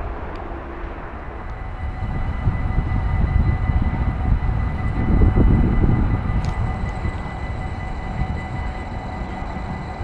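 Passenger train approaching and passing on electrified track, a low rumble that builds to its loudest a little past halfway and then eases off.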